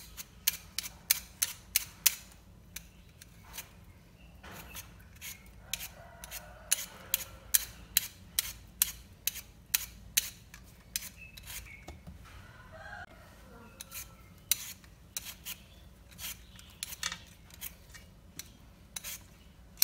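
Hand vegetable peeler scraping the skin off raw potatoes in quick, sharp strokes, about three a second, with a few short pauses.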